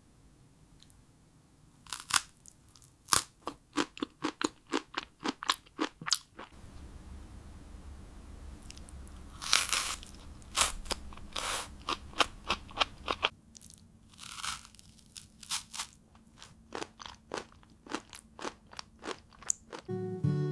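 Close-up eating sounds: a run of sharp, crisp crunches and bites with chewing in between, irregularly spaced.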